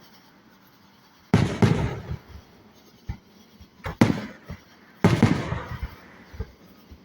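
Aerial fireworks bursting close by: a run of sudden loud booms, some in quick pairs, each dying away slowly.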